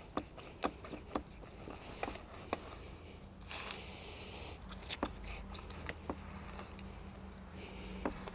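Knife cutting a piece from the middle of a grilled stuffed beef roll on a board: scattered light knocks and a few short stretches of scraping.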